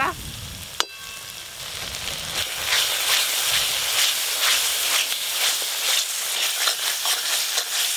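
Thick spice paste sizzling in an aluminium kadai as a metal spatula stirs and scrapes it while the masala is being fried down. The sizzle grows louder after a couple of seconds, and a single ringing clink of metal comes about a second in.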